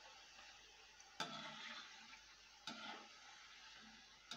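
Khurma dough pieces deep-frying in hot oil in a kadhai: a quiet, steady sizzle, which jumps louder suddenly about a second in and again near three seconds.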